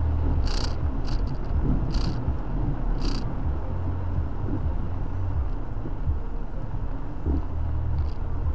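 Low, pulsing rumble of a car idling in slow traffic, heard from inside the cabin in heavy rain. In the first three seconds, short swishes about every second and a bit from the windshield wipers sweeping the wet glass, then two faint ones near the end.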